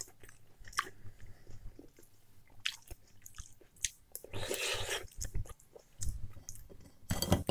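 Close-miked chewing and eating of chicken borscht off a spoon: scattered small mouth clicks and wet eating noises, with a louder stretch about four and a half seconds in as a spoonful goes into the mouth.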